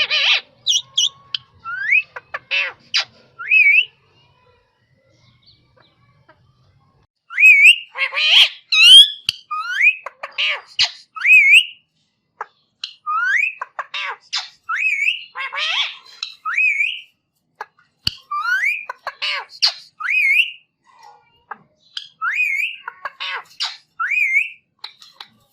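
Rose-ringed (Indian ringneck) parakeet calling in bouts: short rising whistled notes mixed with harsh squawks, pausing for about three seconds early on before calling again.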